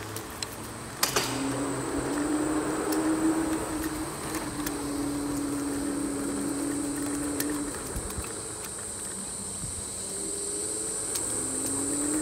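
Segway Ninebot Max G30 electric kick scooter riding along a path: its rear hub motor whines in a pitch that drifts up and down with speed, over a steady high whine and road noise. There is a sharp knock about a second in.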